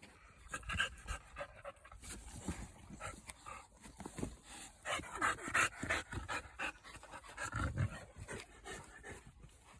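Exotic bully puppy panting in irregular breaths, loudest about five to six seconds in.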